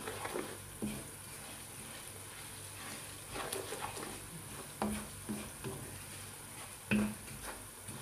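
Wooden spoon stirring garlic and chili flakes frying in oil in a pan. A steady faint sizzle runs throughout, and the spoon scrapes and knocks against the pan now and then.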